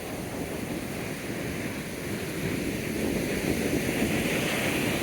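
Surf washing onto the beach, growing louder about halfway through, with wind buffeting the microphone.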